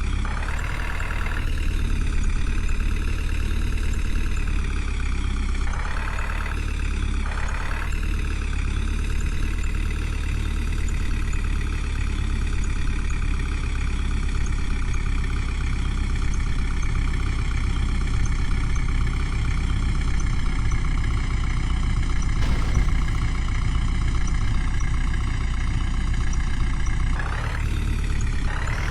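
Diesel engine of a JCB 3DX backhoe loader running steadily, its pitch drifting gently up and down as it works, with a few brief surges in the mix.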